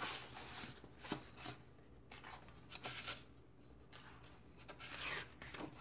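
Pages of a hardcover picture book being turned and flipped by hand: paper rustling in several short bursts.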